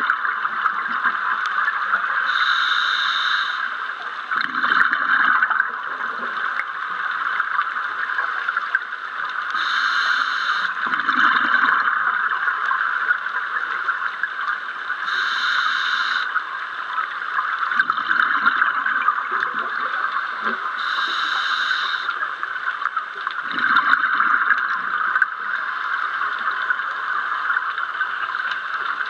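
Scuba diver breathing through a regulator underwater: about four breaths, each a short hiss of inhalation followed a second or two later by the bubbling rumble of exhaled bubbles. Underneath runs a steady crackling hiss.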